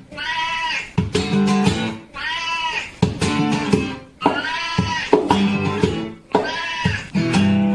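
Music: acoustic guitar strums alternating with a long, drawn-out, goat-like call, in a repeating pattern.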